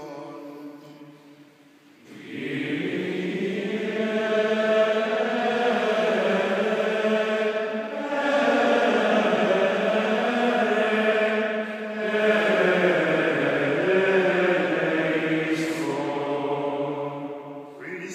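Many voices singing a liturgical chant together in unison, coming in about two seconds in after a short quiet spell, with brief pauses between phrases.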